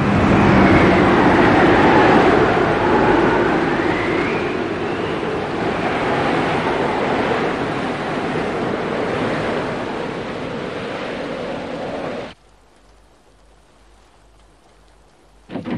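Storm sound effect: howling wind that rises and falls over the rush of heavy waves, cutting off suddenly about twelve seconds in.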